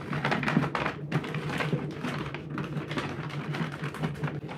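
Parcel packaging being torn open and handled by hand: a run of rustling, crackling and scraping with many small clicks, over a steady low hum.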